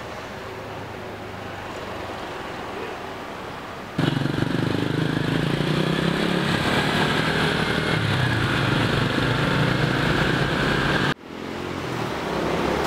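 Car and motorcycle engines in street traffic with tyre and road noise. The sound jumps abruptly louder about four seconds in and drops out for a moment near the end.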